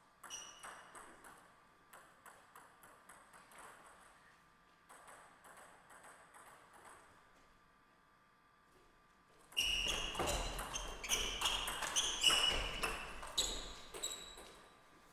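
Table tennis ball bouncing and clicking several times during serve preparation, then a rally about ten seconds in: a quick run of sharp ball strikes on bats and table with low thuds underneath, lasting about five seconds.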